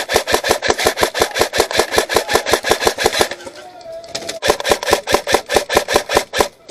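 Airsoft rifle firing on full auto, a fast even rattle of about ten shots a second. It fires in two long bursts with a pause of about a second near the middle.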